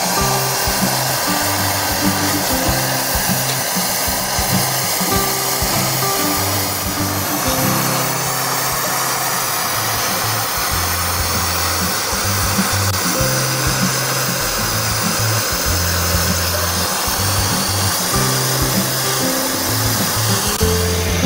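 Steady hiss of a gas welding torch flame heating a metal radiator tank, under background music with a plodding bass line.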